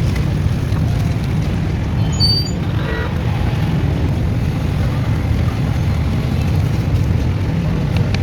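Steady low rumble of street traffic, with a few brief high-pitched tones about two seconds in.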